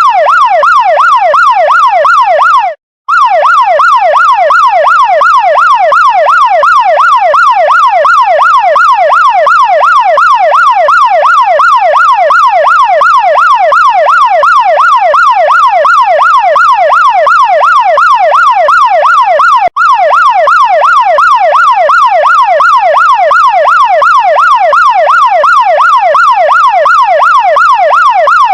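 Chinese fire truck's electronic siren in a fast yelp, its pitch sweeping up and down about four times a second. It cuts out briefly about three seconds in.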